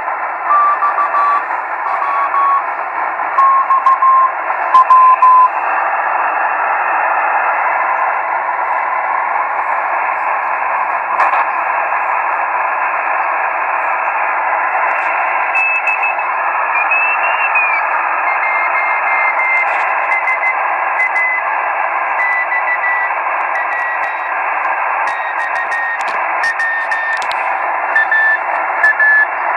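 Radio receiver hiss from an ICOM IC-7000 tuned to the HO-68 satellite's beacon, which comes through as a faint keyed Morse tone. The tone slowly falls in pitch with Doppler shift, then jumps higher about halfway through as the receiver is retuned, and falls again.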